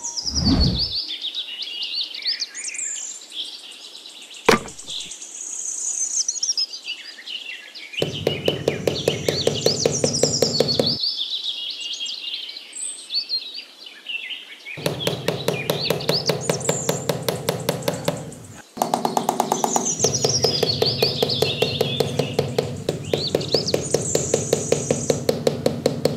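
Birds chirping and twittering throughout. In three long stretches an evenly pulsed mechanical rattle, about five beats a second with a low hum under it, from some small machine or power tool, is the loudest sound; a single sharp click comes a few seconds in.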